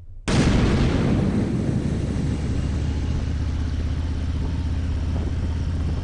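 Harley-Davidson touring motorcycle riding at road speed: its engine hums steadily under wind noise, recorded through a helmet Bluetooth intercom microphone. It comes in abruptly about a quarter second in.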